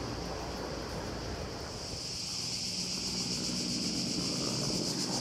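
Cicadas buzzing in a steady high drone that swells about two seconds in, over a low rumble of wind on the microphone.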